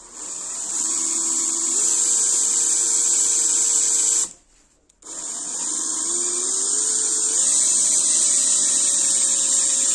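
Hand-held electric drill boring a small hole in a brushed metal panel, in two runs of about four and five seconds with a short stop between. In each run the motor's whine climbs in steps, then holds steady over a strong high hiss.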